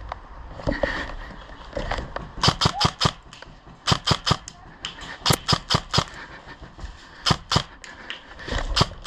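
Airsoft electric rifle (AEG) firing in quick strings of several sharp shots, with short pauses between strings; the first string comes about two and a half seconds in.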